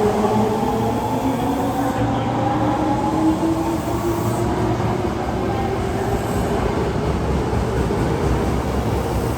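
Osaka Metro 22 series subway train pulling away: its traction motors give a whine in several tones that rise together over the first few seconds and then fade, over a steady rumble of the train running on the rails.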